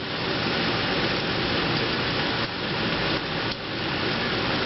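Heavy rain drumming on the roof as a steady hiss, with a few faint taps about two and a half to three and a half seconds in.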